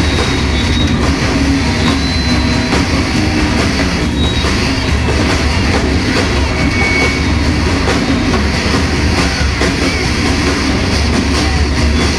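Dense, unbroken wall of sound from a live noise-music ensemble: a heavy low rumble under hiss that fills the whole range. A few brief high whistling tones come and go.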